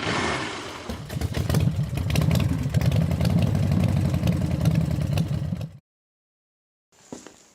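An engine running with a rapid pulsing beat, cutting off suddenly near the end, followed by a few sharp knocks.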